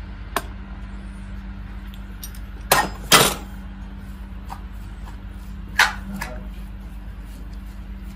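Kitchen utensils and dishes clinking and knocking: a few sharp strikes, the loudest pair about three seconds in and another near six seconds, over a steady low hum.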